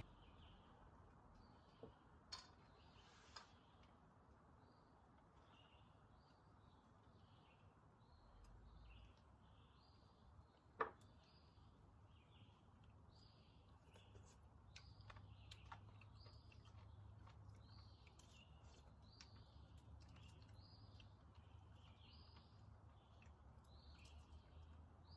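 Faint outdoor ambience with birds chirping over and over in short high notes, more often in the second half, over a low steady hum. One sharp click sounds about eleven seconds in.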